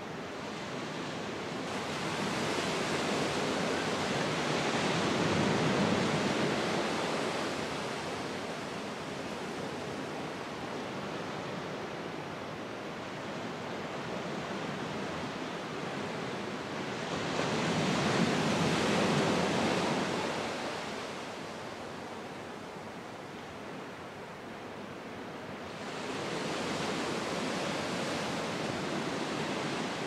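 Sea surf breaking and washing up a beach, a steady hiss of water that swells up and fades away three times.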